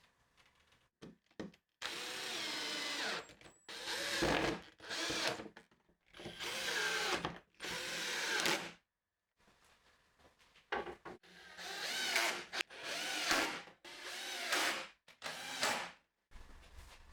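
Power drill running in about ten short bursts of a second or so each, its pitch rising and falling with the trigger.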